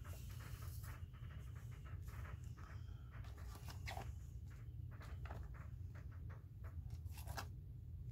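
Small plastic makeup containers rummaged through and handled: scattered light clicks and rustling throughout, over a steady low hum.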